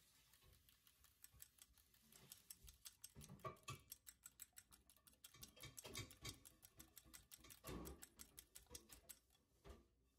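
Egg being beaten in a small glass bowl with a metal fork: faint, rapid clicking of the tines against the glass, with a few heavier knocks.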